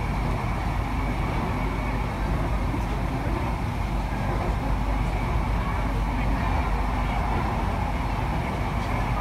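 Kochi Metro train running steadily along its elevated track, heard from inside the coach: an even rumble and rush of running noise that holds level throughout.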